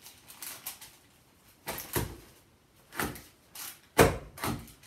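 Handheld craft paper punch being pressed down hard through paper: several short clunks and clicks of the punch mechanism against the table, the loudest about four seconds in.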